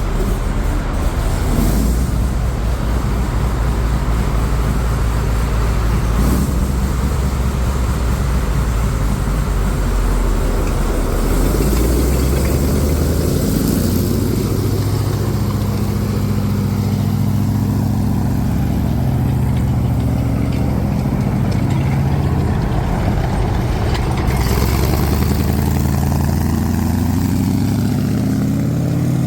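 M3A1 Stuart tank's engine running under its own power, its pitch rising and falling several times as it is revved, with a climb in revs near the end.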